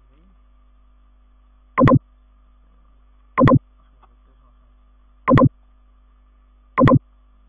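A computer mouse clicked four times, about every one and a half to two seconds; each click is a quick, loud double snap of press and release. A faint steady electrical hum sits underneath.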